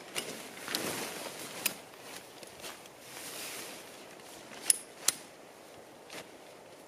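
Nylon tent fabric rustling and the poles of an instant tent clicking as its frame is pulled up and locked, with a scatter of sharp clicks, the loudest two half a second apart about two-thirds in.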